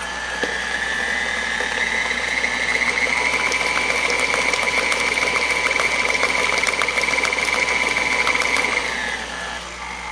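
KitchenAid stand mixer running, beating cream cheese batter in a steel bowl: its motor whine rises as it speeds up over the first few seconds, holds steady, then winds down near the end.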